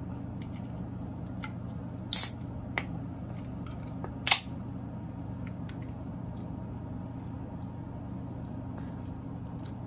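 A 24 oz aluminium can of Twisted Tea being cracked open: two short sharp cracks, about two and four seconds in, the second as the pull tab snaps the can open, over a steady low hum.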